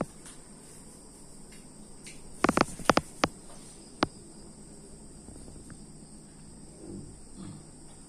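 Steady high-pitched chirring of crickets, with a quick cluster of sharp clicks about two and a half seconds in and a single click about four seconds in.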